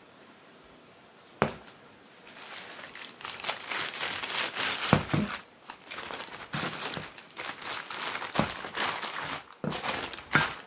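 Clear plastic parts bags crinkling as hands pick up and gather packaged shock-absorber top mounts, with scattered clicks. A single sharp knock comes about a second and a half in, before the crinkling starts.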